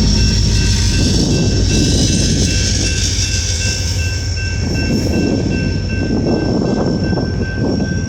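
Slowed-down freight train rolling past close by: a loud, steady rumble of wheels and cars on the rails, with thin, steady high-pitched squealing tones held above it.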